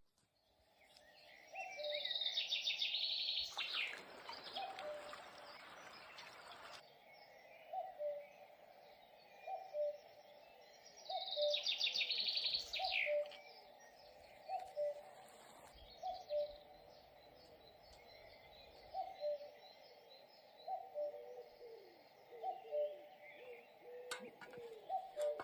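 Wild birds calling: a low two-note call, the first note higher than the second, repeats about every one and a half seconds, while a high trilling song rings out twice, with fainter chirps between.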